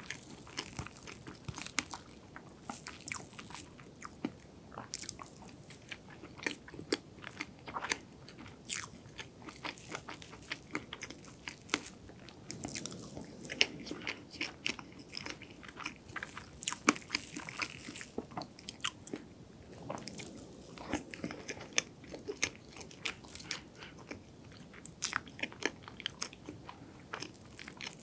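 Chewing and mouth sounds of a person eating soft strawberry cream sponge cake, with many sharp, irregular wet clicks and smacks.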